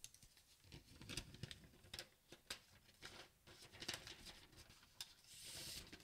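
Faint crinkling and rustling of the protective film wrap being peeled off the back of a new iPad mini, with scattered small ticks and a soft, longer peel near the end.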